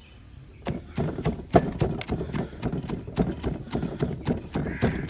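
Wooden pestle pounding soaked moong and chana dal in a wooden mortar: quick dull knocks, about four a second, starting a little under a second in.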